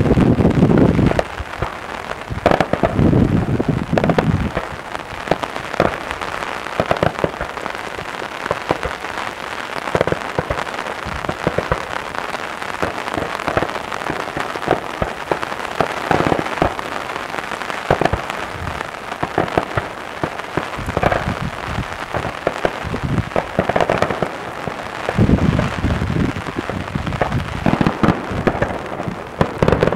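Daytime aerial fireworks: a dense, continuous crackle of many small pops and reports, like rain, with heavier booms in the first few seconds and again near the end.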